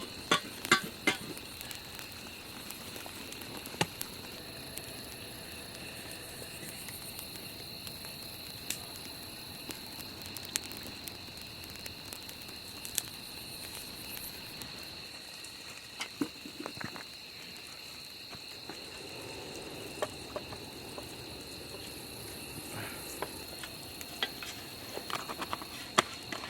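Night insects trilling steadily and high-pitched, over scattered sharp pops and crackles from the cooking fire, clustered near the start and again near the end.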